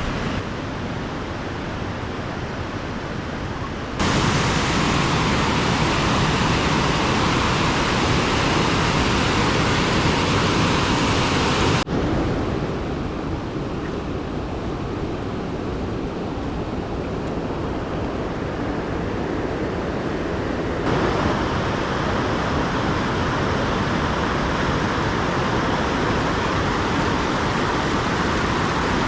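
Steady rushing of a waterfall. It grows abruptly louder and brighter about four seconds in, drops back suddenly near twelve seconds and rises again near twenty-one seconds.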